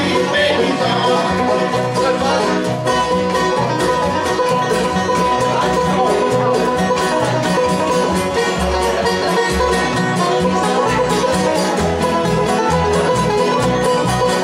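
Bluegrass band playing an instrumental break: an acoustic guitar picks the lead over banjo, rhythm guitar and upright bass.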